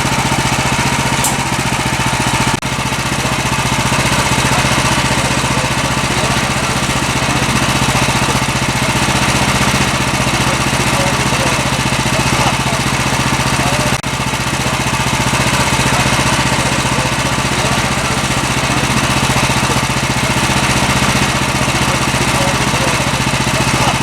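Small gasoline engine of a portable bandsaw sawmill running steadily.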